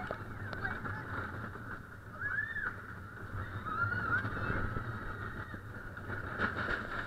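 Roller coaster car running along its track: a steady rumble and rattle, with a few short high squeals gliding up and down over it, about two and a half and four seconds in.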